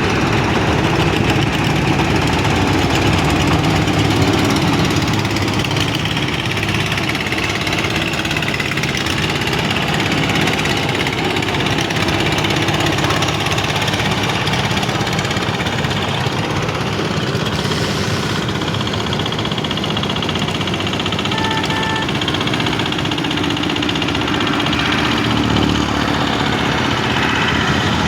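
Boat engine running steadily at an even pace.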